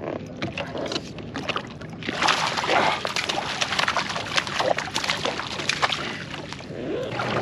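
A hooked Australian salmon thrashing and splashing at the surface beside a kayak as it is drawn to the landing net, a dense run of sharp splashes starting about two seconds in.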